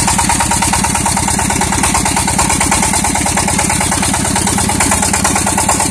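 Walking tractor's engine running steadily at idle, a quick, even beat of firing pulses.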